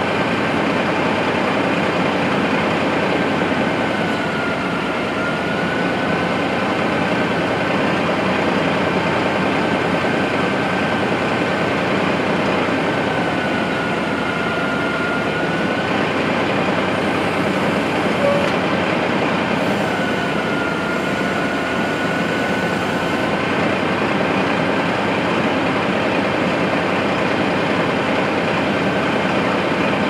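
Mahindra tractor's diesel engine running steadily while powering a three-point backhoe's hydraulics as the boom and bucket are cycled to work air out of the new cylinders. A high thin whine rides over the engine and sags in pitch three times as the levers are worked.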